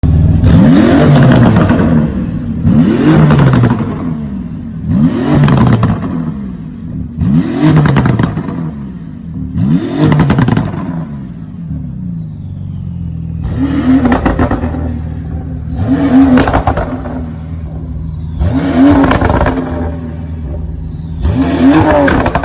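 Porsche 911 GT2 RS twin-turbo flat-six engine revved in repeated blips, about one every two seconds, each followed by a high whistle falling away. It idles briefly around the middle, then the blips resume.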